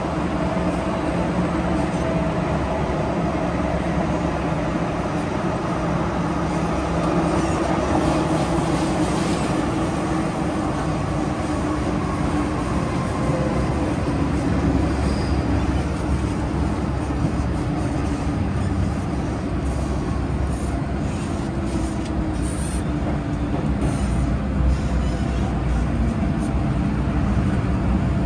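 MTR Kwun Tong line M-Train running along the line: a steady rumble of wheels and car body with motor hums that shift slowly in pitch as the speed changes.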